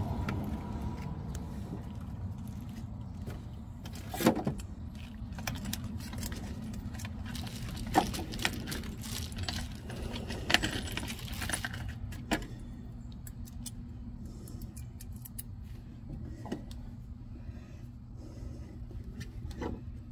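Metal clinks and rattles from a ratchet wrench tightening the negative cable onto a lithium battery terminal. There are a few sharper clacks and a run of small clicks near the middle.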